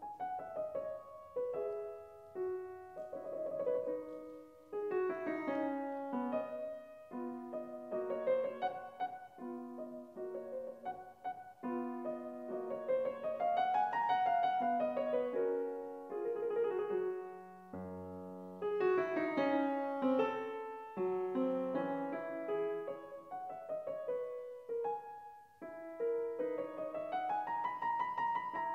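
Bösendorfer concert grand piano played solo in classical style, with flowing runs of notes that climb and fall again. A deep bass note sounds about two-thirds of the way through.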